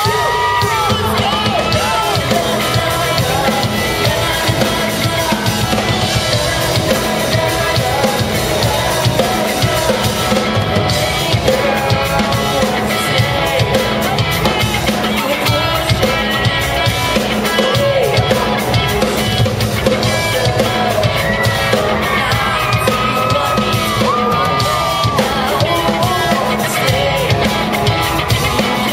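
Pop-rock band playing live, heard from the audience: drum kit, electric guitar and a male lead singer, loud and continuous.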